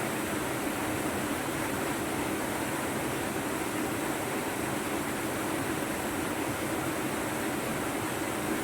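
Steady rush of fast-flowing water, an even noise that holds without change, from a river or waterfall in spate.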